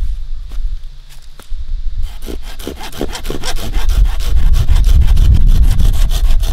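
Hand saw cutting through a thin dead branch: a few light strokes at first, then quick, regular rasping back-and-forth strokes from about two seconds in, growing louder.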